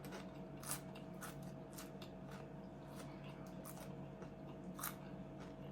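A person chewing food close to the microphone, with scattered short mouth clicks and crunches, over a steady low hum.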